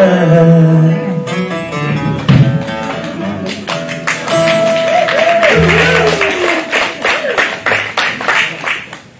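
Live country gospel band playing: strummed acoustic guitar, upright bass and drum kit under a singing voice, the song winding down and fading out near the end.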